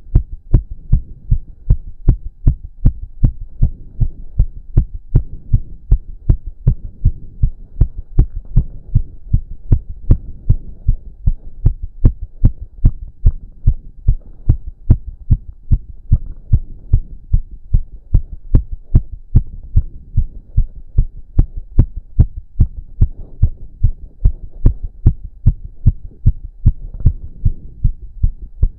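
A man's heart beating fast, its rate raised by exercise: a quick, even run of sharp thumps with a low hum beneath.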